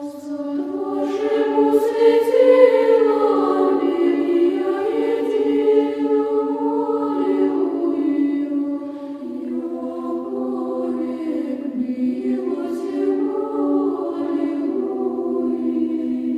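A choir chanting slowly in church style over a held low drone note; the drone steps down about halfway through and back up near the end.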